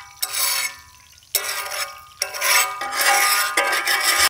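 Metal spatula and perforated ladle scraping against a large iron frying pan (kadai) of hot oil in about four rasping strokes, each with a ringing metallic tone.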